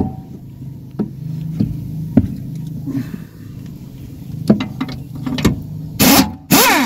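Pneumatic impact wrench undoing one of the nuts that hold a car's rear axle: metal clicks as the socket is fitted, then two short loud bursts of hammering near the end, the second winding down in pitch. A steady low hum runs underneath.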